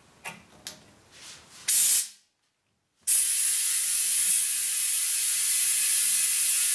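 Compressed air from an air hose rushing into a truck tire through a valve stem with its core removed, to seat the tire's bead: a few small clicks as the chuck goes on and a short burst of air, then a loud, steady hiss.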